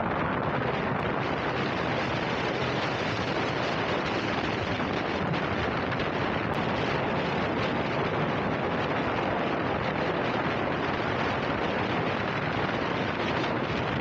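Steady rush of wind on the microphone of a bike in motion, with no speech.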